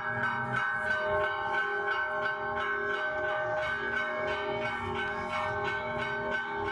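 Bells ringing in a steady run of strikes, about three to four a second, each note ringing on under the next.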